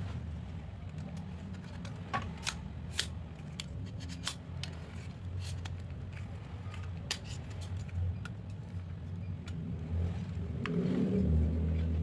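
Scattered sharp clicks and taps of small hard objects being handled, over a steady low rumble that grows louder near the end.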